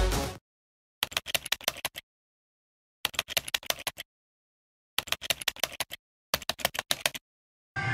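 Typing sound effect: rapid key clicks in four short bursts of about a second each, with dead silence between them, laid over text appearing letter by letter. Electronic dance music cuts off about half a second in.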